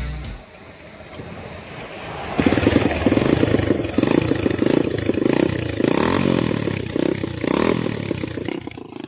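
Old Kawasaki motorcycle engine running, quiet at first, then louder from about two seconds in and revved, its pitch rising and falling repeatedly.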